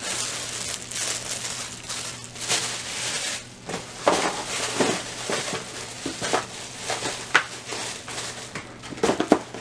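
Clear plastic wrapping crinkling as it is handled, with a few sharp knocks and clicks from handling shoes and boxes, the loudest a quick cluster near the end.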